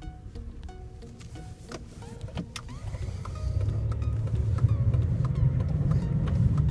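Car cabin noise: a low engine-and-road rumble from inside a moving car, growing louder from about three seconds in, with scattered light clicks.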